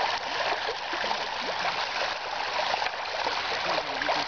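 River water running and lapping against a rocky shore: a steady rush with continual gurgling and small splashes.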